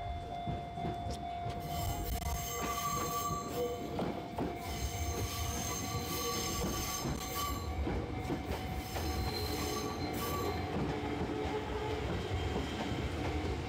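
Train running on rails, wheels squealing with a steady high whine over the rumble.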